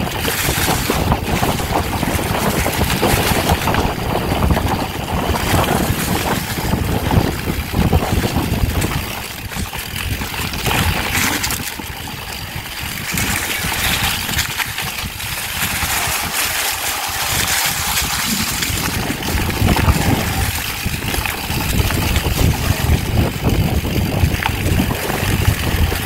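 Wind rushing over the camera microphone and mountain-bike tyres rumbling over dry leaves and dirt on a fast singletrack descent, with frequent knocks and rattles of the Specialized Stumpjumper bike over bumps.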